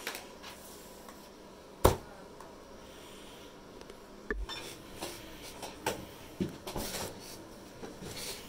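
Scattered clicks and clatter of small hard objects, with one sharp loud knock about two seconds in and a run of lighter clicks in the second half.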